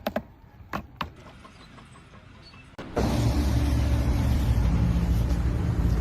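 A few light clicks, then about three seconds in a loud engine starts in abruptly, running steadily with a low hum and a broad noisy wash.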